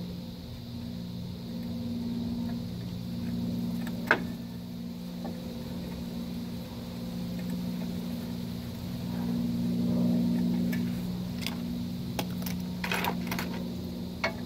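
Metal clinks and taps of drum-brake hardware (shoes and springs) being handled and worked loose by hand: one sharp click about four seconds in and a run of short clinks near the end, over a steady low mechanical hum.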